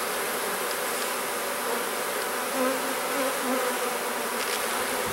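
Many honeybees buzzing around an opened hive in a steady hum. A nearer bee's buzz stands out briefly about midway.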